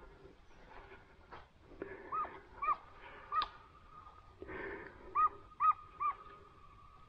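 Dog barking: two runs of three short, high yelps with a pause between them.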